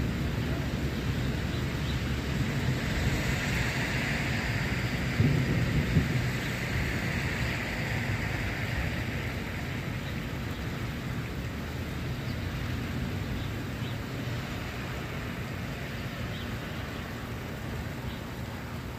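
Rolling thunder rumbling low and slowly fading away, over the steady hiss of rain.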